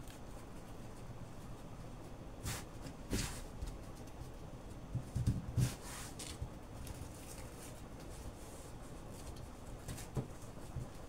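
Fabric being handled on a table: short rustles and brushing as hands smooth and fold printed adire cloth, with two soft thumps about five seconds in.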